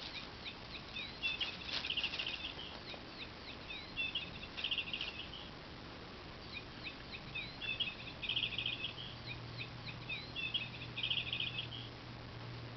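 Electronic bird-chirp sound module inside a crinkle-bag cat toy, playing the same recorded birdsong phrase four times over: a few sweeping chirps, then a fast trill. The bag's material crinkles briefly twice.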